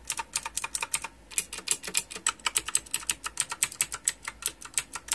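Fast typing on an EagleTec mechanical keyboard with a metal body: an uneven run of sharp, clicky keystrokes, several a second, really loud.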